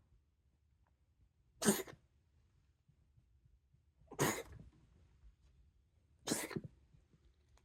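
A grown cat's reverse sneeze: three short, sharp noisy bursts through the nose, about two seconds apart. Reverse sneezing, which the vet called common in cats and nothing to worry about.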